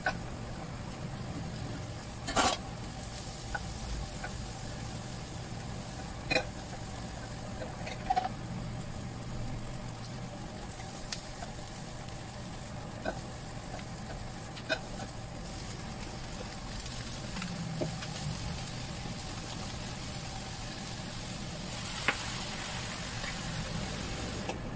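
Vegetables stir-frying in a nonstick wok over a gas flame: a steady sizzle over a low hum, with a wooden spatula knocking sharply against the pan every few seconds, loudest about two seconds in.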